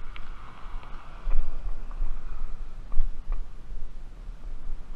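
Wind buffeting the microphone: a low, gusty rumble that surges about a second in and again around three seconds, with a few faint clicks.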